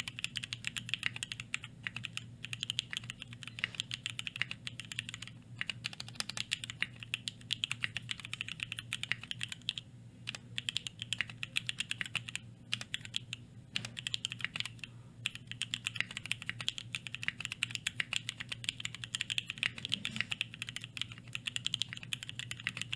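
Typing on a custom 60% mechanical keyboard (KBDFans Anode 60 aluminum tray-mount case, Durock Speed tactile switches on an aluminum plate, PBT keycaps): a rapid, steady run of key clacks with a few short pauses. The clack is fairly high-pitched. A faint low hum runs underneath.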